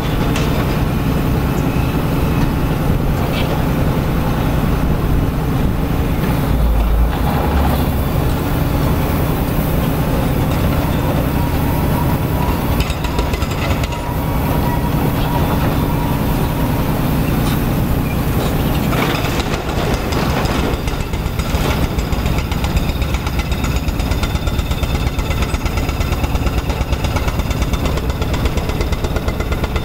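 Liebherr R 942 crawler excavator's diesel engine running steadily under load as it digs and loads a dump truck, with a few clanks about twenty seconds in. From then on a fast, even rattle runs alongside the engine.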